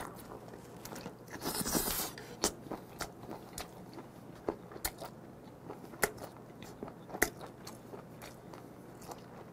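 A person biting into and chewing whole steamed golden cuttlefish: a bite about a second and a half in, then scattered soft clicks of chewing.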